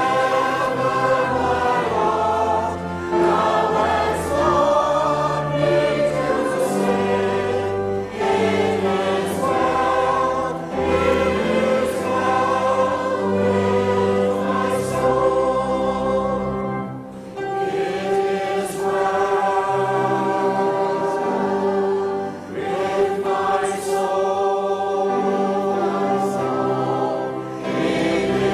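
Church congregation singing a hymn together, many voices holding long notes.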